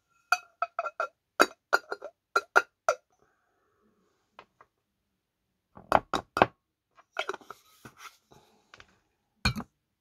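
Glass clinking against glass as a small glass jar is tapped against a larger glass jar: a quick run of about ten ringing clinks, a pause, a few heavier knocks about six seconds in, then more clinks and one last knock near the end.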